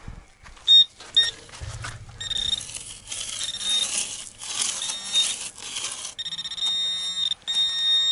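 Metal-detecting pinpointer giving short high beeps, then a continuous high buzz from about six seconds in, briefly broken, as it sits on metal: a target signal that turns out to be a scrap of iron. Rustling, scraping noise fills the middle, with the pinpointer chirping through it.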